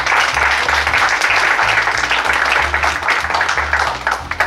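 Audience applauding, dense clapping that dies away near the end, over background music with a repeating bass line.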